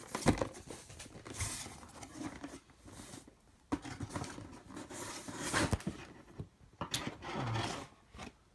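Cardboard box and its packaging being handled and opened: irregular rustling and scraping with a few sharp knocks.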